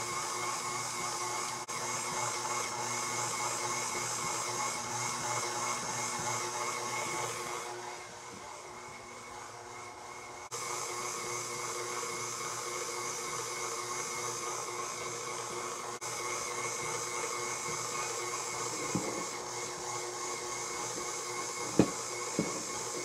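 KitchenAid Artisan stand mixer running steadily, its motor whining as the dough hook kneads bread dough in the steel bowl. The level dips for a couple of seconds about a third of the way in, and a few sharp knocks sound near the end.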